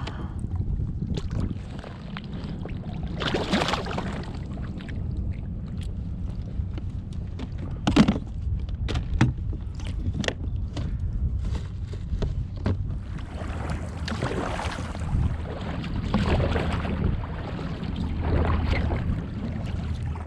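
Water splashing and sloshing around a kayak, with scattered sharp knocks on the hull, the loudest about eight seconds in. A steady low wind rumble sits on the action camera's microphone throughout.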